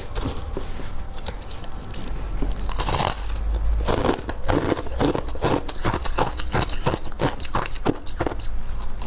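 Close-miked biting and chewing of ice and freezer frost: crisp crunches, sparse at first and then coming several a second from about three seconds in.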